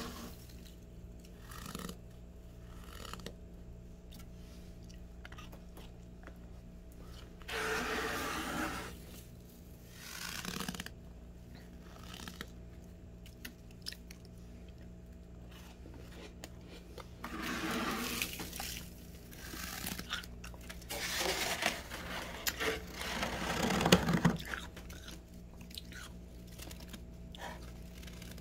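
Fingers scraping and crunching thick frost off the inside walls of a freezer, in several separate bursts of a second or two with quieter gaps between.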